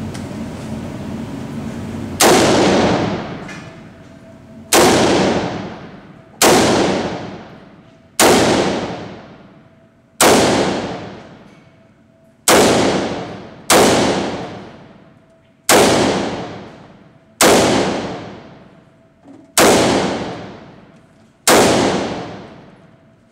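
Daniel Defense DDM4V5 AR-15 rifle in .223 fired eleven times in slow, single shots about one and a half to two and a half seconds apart, each shot followed by a long echo off the walls of an indoor range.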